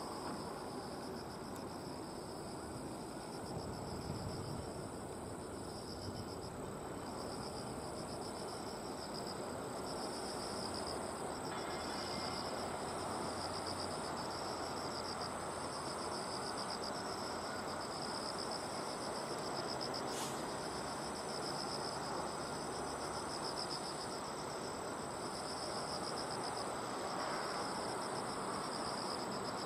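Insects singing: a steady high trill with a second insect song pulsing every second or so over it, above a steady low background hum.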